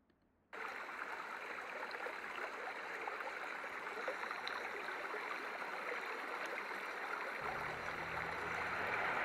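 Steady rushing of flowing water, like a stream, starting about half a second in. A low rumble joins about seven seconds in.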